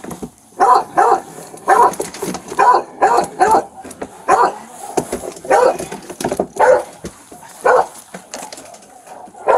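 Feral dog barking repeatedly, short barks about once a second, often two in quick succession.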